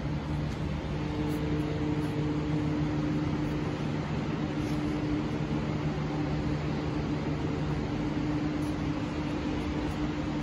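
A steady mechanical hum with a few low tones held throughout.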